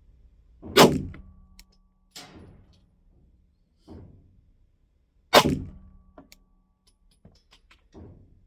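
Two 9mm pistol shots from a Glock 45, about four and a half seconds apart, each with a short echoing tail, with three much fainter bangs in between and after.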